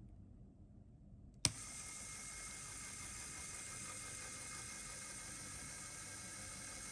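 A sharp plastic click as the LEGO Power Functions battery box switch is flipped, about a second and a half in, then a LEGO Technic electric motor starts and runs steadily, whirring as it turns the plastic gears of a sun and planet gear mechanism.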